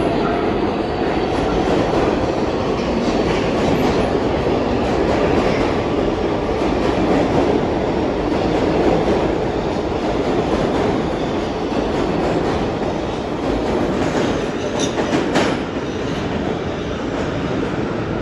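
New York City subway 7 train (R188 cars) running through the station, a loud steady rumble of wheels on rail with some clacking. A couple of sharp clicks come about fifteen seconds in, after which the noise eases slightly.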